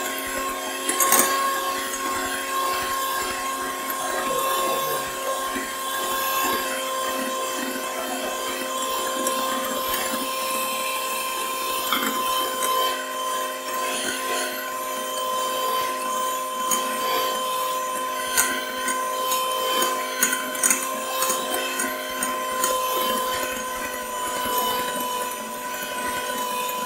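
Electric hand mixer running steadily at one speed, its motor whining at a constant pitch as the beaters whip egg whites in a glass bowl, with occasional light clicks.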